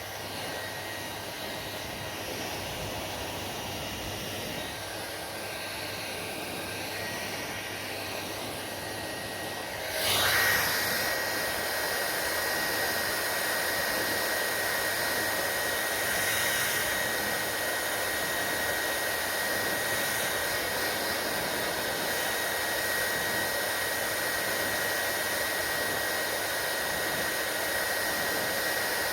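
Hair dryer running with a steady hiss; about ten seconds in it gets suddenly louder and a steady high whine joins the airflow, then runs on evenly.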